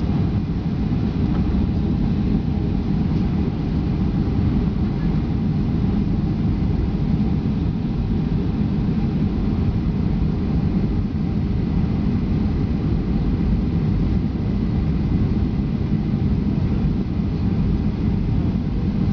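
Steady airliner cabin noise from jet engines and rushing air during the approach: an even low rumble with a few faint steady tones above it.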